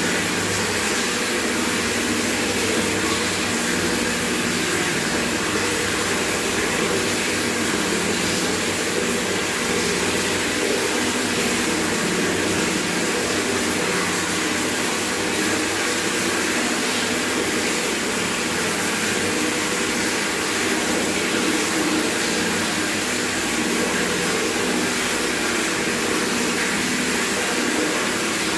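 Tap water pouring steadily from a faucet into a bucket, a constant splashing rush with no change in flow.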